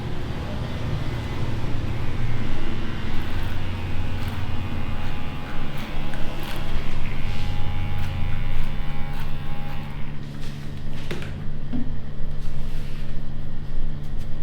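Electric hair clippers running with a steady buzzing hum while cutting a fade, with a few light clicks in the second half.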